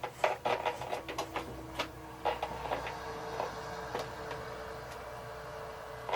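Small clicks and knocks of a network cable being handled and plugged into the back of a desktop computer, most of them in the first half, over a steady hum.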